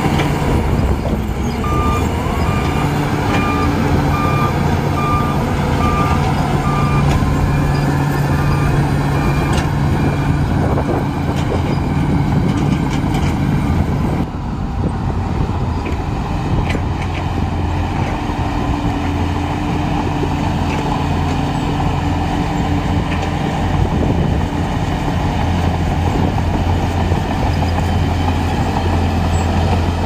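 Shantui DH17 crawler bulldozer's diesel engine running steadily under load while pushing wet earth. A reversing alarm beeps in a regular pattern for roughly the first ten seconds. The sound changes abruptly about halfway through.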